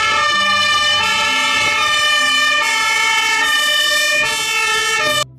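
German fire engine's two-tone siren, stepping back and forth between two pitches about once a second, starting and cutting off abruptly.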